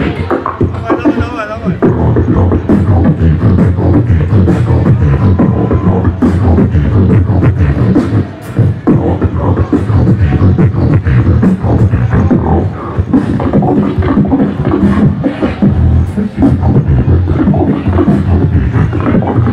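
Beatboxing through a handheld microphone and a loud PA: a continuous stream of rhythmic vocal percussion, with heavy bass and many sharp clicks, and a short dip about eight seconds in. The recording quality is poor.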